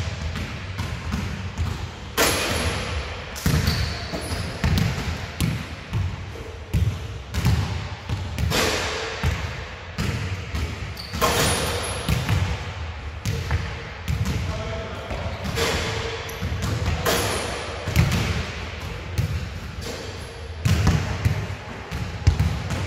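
Basketballs bouncing on an indoor court in a large sports hall, with many irregular thuds.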